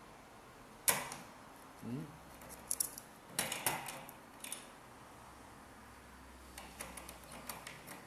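Metal clicks and rattles from a BMW car door lock cylinder and its pick tools being handled in a practice mount. A sharp click comes about a second in, a cluster of rattling clicks around the middle, and lighter clicks near the end.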